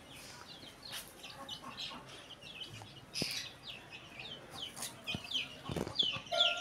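A group of young chickens peeping, many short falling chirps overlapping, with a few soft knocks and one louder thump near the end.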